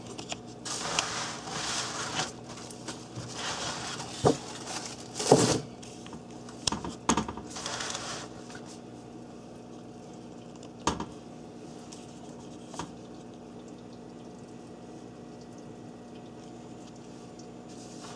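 Rustling and scattered knocks of handling for the first eight seconds, the loudest knock about five seconds in. After that comes a steady low hum with a couple of single faint clicks.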